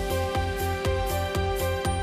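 Background music with held notes over a steady pulsing beat.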